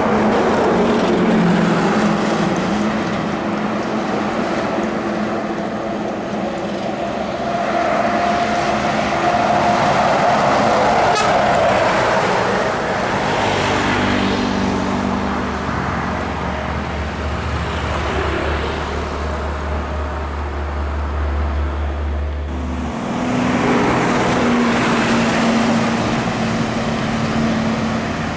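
Diesel coach buses and heavy trucks passing at speed on a highway: engine note and tyre noise swell as a coach goes by and fade as it pulls away. About two-thirds of the way through the sound changes abruptly to another coach approaching with truck traffic.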